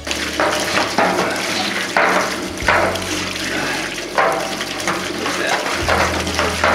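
Sediment-laden water gushing out of an open plug hole near the bottom of a galvanized well pressure tank and splashing onto the wet floor. The well pump is running to flush out the sand, and the flow surges unevenly as a PVC pipe stirs the sediment inside the tank.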